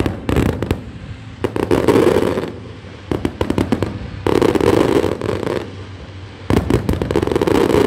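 Fireworks display: rapid bangs and crackling in three dense volleys, one about a second and a half in, one around four to five and a half seconds in, and one from about six and a half seconds to the end, with quieter scattered pops between.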